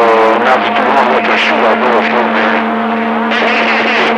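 CB radio receiver hissing with static, a steady low heterodyne whistle running through it and garbled, unreadable transmission fragments breaking through: interference from a powerful station bleeding over the channel.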